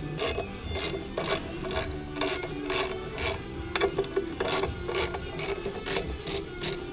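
A hand tool worked on motorcycle clutch parts in quick repeated metallic strokes, about two a second.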